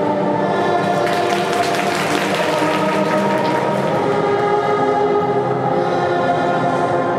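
Figure skating program music played over the rink's loudspeakers, with audience applause joining about a second in and fading out after about three seconds.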